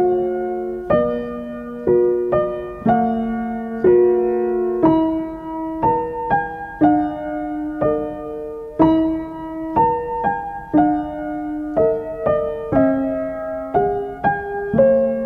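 Background music: a slow, gentle solo piano piece, notes and chords struck about once a second and left to ring and fade.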